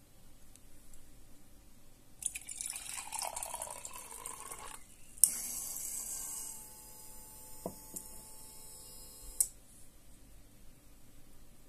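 Water poured into a glass jar, splashing for about two and a half seconds. Then a small submersible water pump, switched on by a water sensor, clicks on and runs with a steady hum for about four seconds, pumping the water up a tube into a glass, and clicks off.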